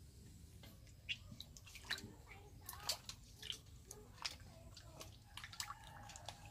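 Hands washing a whole fish in a steel bowl of water: faint sloshing and small splashes, with a few sharper splashes in the first half.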